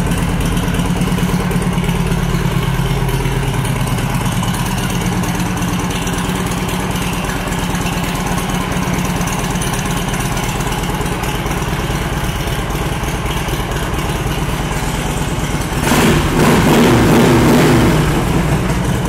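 2004 Harley-Davidson Ultra Classic Electra Glide's fuel-injected Twin Cam 88 V-twin idling with a deep rumble through aftermarket Samson exhaust pipes. Near the end it is revved and held higher for a few seconds.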